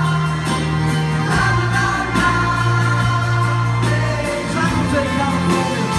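Live rock band playing with a large crowd singing along in a concert hall, the voices holding long sung notes over sustained bass notes.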